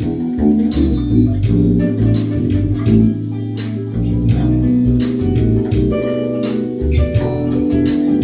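Electric bass guitar playing a busy, moving bass line in a live band jam, over sustained chords and a steady beat.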